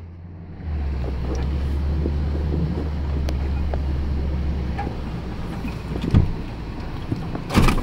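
Truck driving through about two feet of floodwater: a steady low engine drone under load with water rushing and splashing against the body. The drone fades about five seconds in, and two brief thumps follow near the end.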